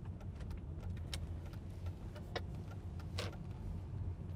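Steady low rumble of a car moving, heard from inside the cabin, with a few light clicks now and then.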